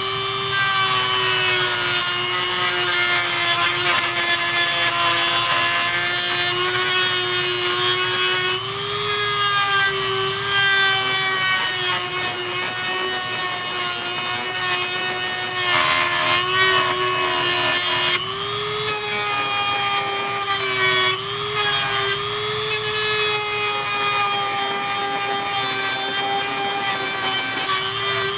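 Dremel rotary tool running at high speed with a steady high-pitched whine, grinding the heads off the iron tacks that hold the basket's leather hinges. The pitch dips briefly several times as the bit is pressed into the work.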